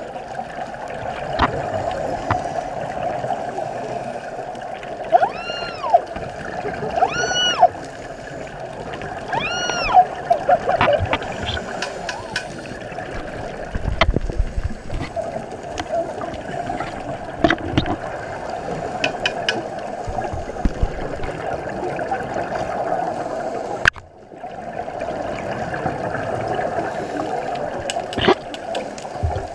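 Underwater sound of scuba diving: steady bubbling and hiss from a diver's regulator exhalations, with a heavier rush of exhaled bubbles about halfway through and scattered sharp clicks. In the first third come three short rising-and-falling tones.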